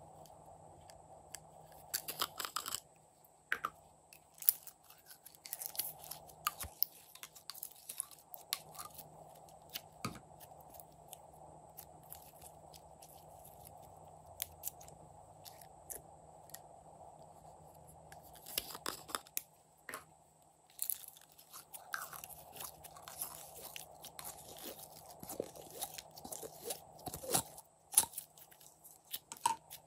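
Hands squeezing, squishing and pulling glossy and glitter slime: irregular sticky crackles, pops and clicks, coming in dense clusters several times.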